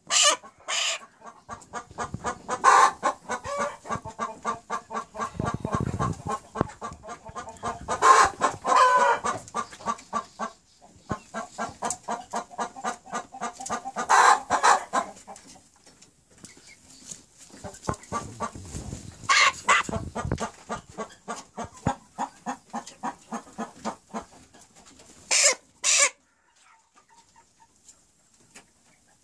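Chickens clucking in rapid runs, with a louder squawk every few seconds, dying away near the end.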